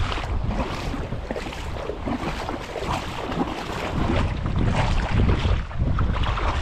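Wind buffeting the camera microphone as a low rumble, over water sloshing and splashing as someone wades through ankle-deep sea water. It gets louder a little past the middle.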